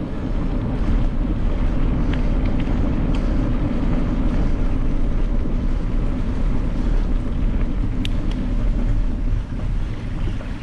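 Wind buffeting the microphone of a camera on a moving bicycle: a loud, steady low rumble, with a few sharp clicks about two, three and eight seconds in.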